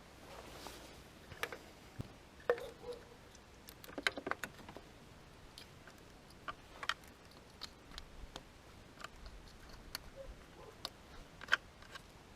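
Irregular light clicks and metallic knocks of hand tools and parts being handled during engine reassembly, about a dozen separate taps with no engine running.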